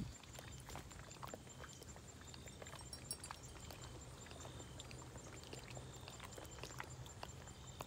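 Faint outdoor ambience: scattered light clicks and ticks, with short high chirps repeating over a steady faint high buzz.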